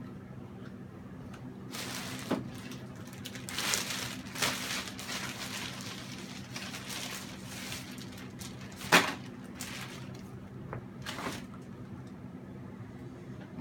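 Irregular rustling and scraping of handled materials, with a sharp tap about nine seconds in, over a steady low electrical hum.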